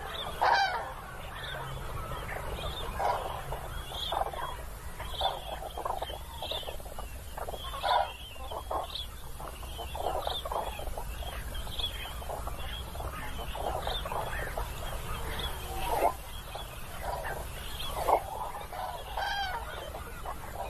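A large flock of common cranes calling, many overlapping calls with a few louder ones standing out, one about half a second in and one near eight seconds.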